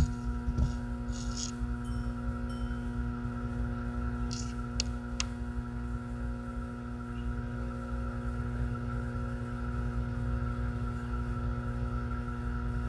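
A brass singing bowl ringing on with several steady, overlapping tones, after a light tap on its rim at the start. A few faint small clicks of handling come about four to five seconds in.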